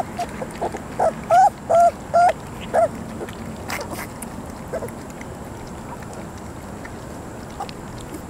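Three-week-old Vizsla puppies whimpering: a run of about six short, high whines in the first three seconds as they crowd a pan of puppy mush, then only faint scattered clicks of lapping at the food.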